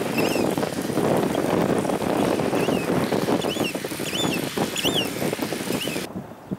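A thin stream of pumped water pouring from a delivery hose and splashing into a water storage tank: the pump's output is reaching the tank. It stops abruptly near the end.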